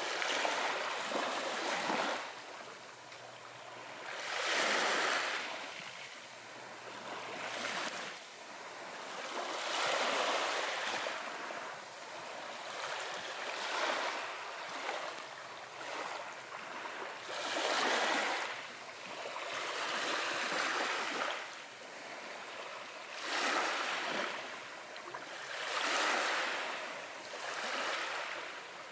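Waves washing in on a tropical beach: a swelling and ebbing hiss of surf that comes every few seconds.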